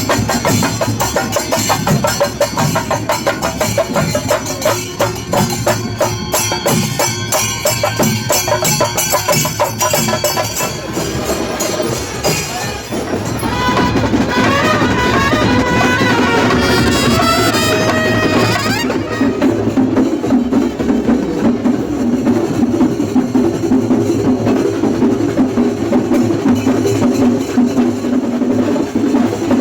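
Drum-led percussion music with fast, dense strokes. Partway through, wavering pitched tones come in over it for several seconds before the drumming carries on alone.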